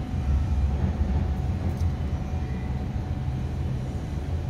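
A steady low background rumble.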